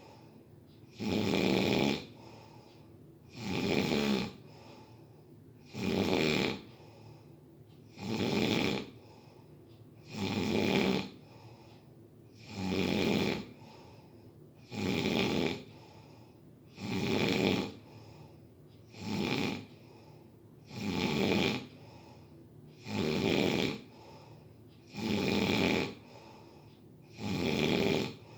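Someone asleep and snoring steadily. One snore comes about every two seconds, each lasting about a second, with quiet breathing between.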